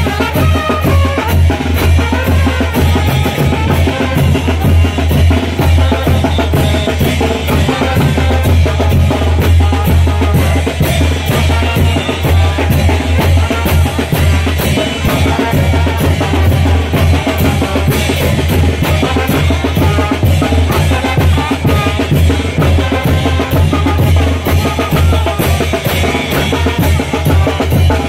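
Mexican street brass band (banda) playing a chinelo dance tune: trumpets, trombones and sousaphone over a steady beat of bass drum, snare drum and clashed hand cymbals, with a strong, continuous low bass.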